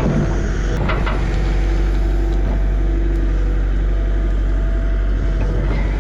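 Caterpillar 205LC excavator's diesel engine running steadily under work while digging, with a sharp knock about a second in.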